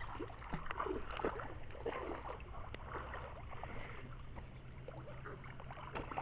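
Shallow floodwater splashing and lapping in small irregular splashes over a low steady hum.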